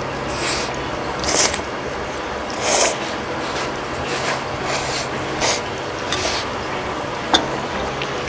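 Noodles being slurped off a fork in a series of short hissing pulls, the loudest two in the first three seconds, over a steady background hum; a short sharp click near the end.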